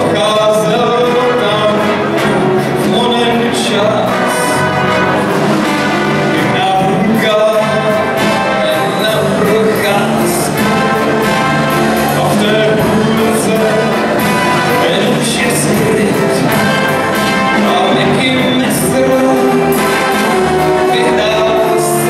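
A big band playing live, a brass section of trumpets and trombones with saxophones over drums and rhythm section.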